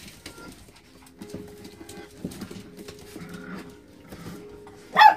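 Puppies vocalizing as they play: drawn-out low whines and grumbles, then one loud, sharp yip near the end.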